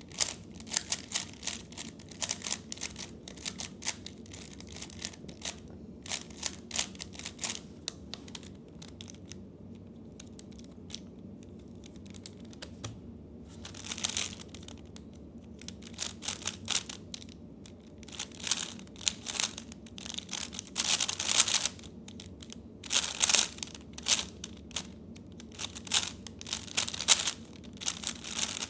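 A 3x3 speed cube being turned fast by hand: rapid plastic clicking and clacking of its layers, in quick bursts with short pauses, louder in spells in the second half. This is the sound of a cube being scrambled and speedsolved.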